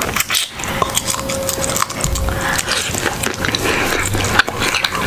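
Close-miked eating of seafood boil: wet smacking and sucking of sauce off fingers and food, with chewing. It comes as many short, sharp wet clicks.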